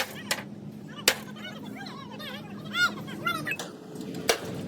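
Scattered sharp metallic clinks and knocks of metal striking metal: a few separate hits, one right at the start, one about a second in and one near the end.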